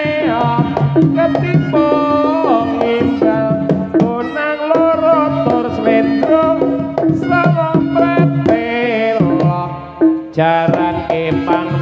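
Live Javanese jaranan gamelan music: hand-played kendang drum strokes driving a steady rhythm under held and sliding melodic lines. The music dips briefly about ten seconds in, then comes back in full.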